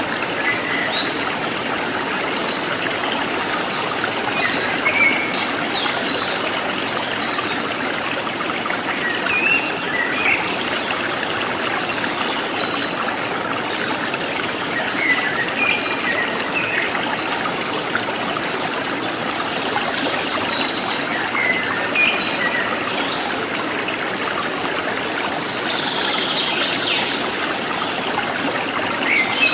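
Forest stream trickling and babbling steadily, with wild birds chirping briefly here and there over it.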